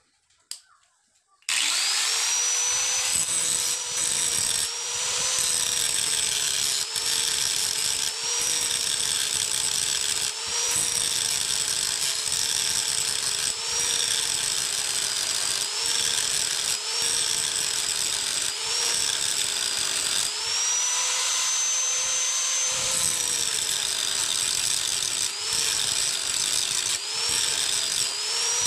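Electric grinder switched on and spinning up with a rising whine, then running steadily while being pressed against a steel wood chisel again and again, its pitch sagging briefly under load about every second.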